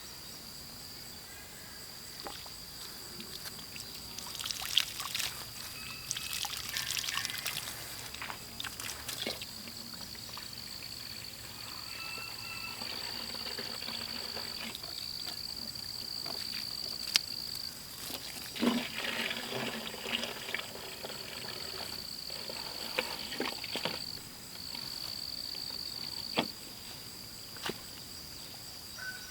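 Standing water sloshing and trickling in several bursts, over a steady high-pitched insect buzz that breaks off now and then.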